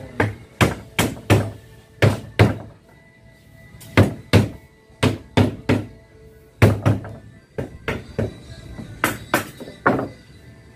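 Wooden block knocking the aluminium rail of a sliding-window frame down onto the edge of a glass pane, seating the glass in the frame. Sharp knocks come in groups of two to five, about twenty in all.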